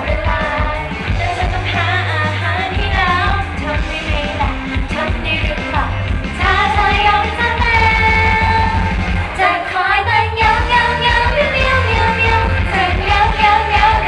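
Female idol singers singing a pop song live into handheld microphones over a loud backing track with a steady bass line.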